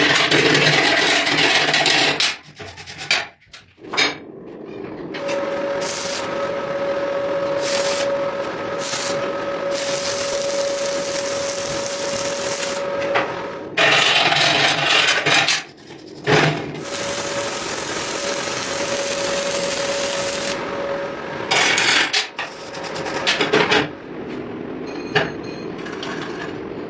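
A motor-driven metalworking tool running with a steady hum, broken by several louder stretches of harsh friction noise that start and stop abruptly.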